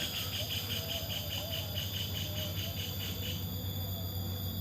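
A kingfisher, the parent of the nest, calling a fast series of sharp notes, about five a second, that stops a little over three seconds in. A steady high insect drone runs underneath.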